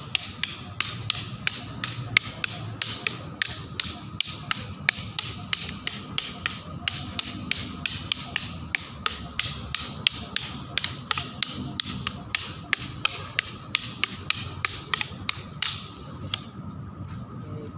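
Hand-held practice sticks striking each other in a fast, even rhythm of about three or four sharp clacks a second, as in a partner stick-fighting drill; the clacking stops near the end.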